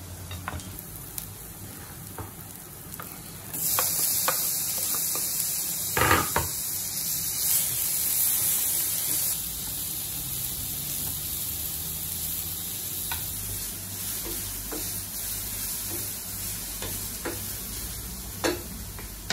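Onions, garlic and tomatoes sizzling in a nonstick frying pan on a gas stove, with a few knocks of a utensil against the pan. The sizzle grows louder a few seconds in.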